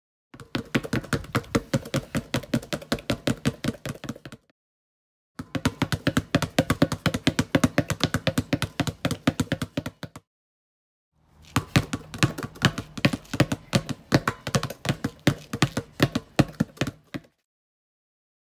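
Basketballs dribbled fast on a concrete patio: several sharp bounces a second. The bouncing comes in three runs, each cut off suddenly into silence.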